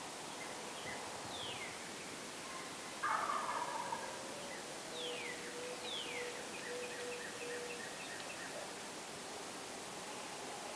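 A wild turkey gobbles once, a loud rattling call about three seconds in. Quieter short falling whistles come a few times.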